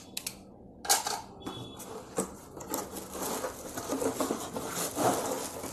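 Cardboard clock box being opened and handled: scattered taps and clicks, then a longer stretch of scraping and rustling as the box is tipped open.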